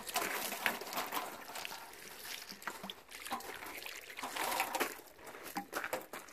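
Water poured from a plastic watering can's spout, trickling and splashing over a uPVC window frame and its metal hinges to rinse off washing-up liquid.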